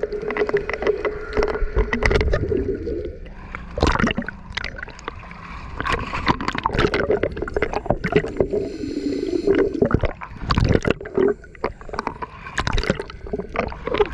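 Water bubbling and gurgling in irregular bursts over a steady hum.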